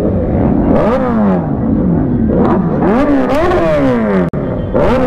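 Kawasaki Z900 motorcycle engine being revved in repeated sharp blips, each one climbing quickly in pitch and falling back to idle.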